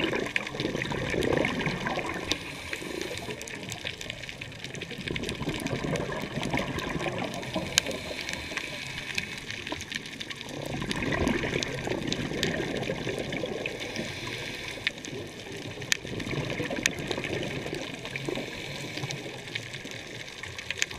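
Underwater bubbling from a scuba diver's regulator: exhaled air bubbles in surges a few seconds apart, with scattered faint clicks.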